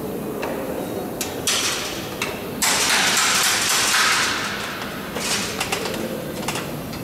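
Air-driven (pneumatic) rivet squeezer setting rivets: several short hisses of compressed air, with one longer hiss lasting over a second about midway.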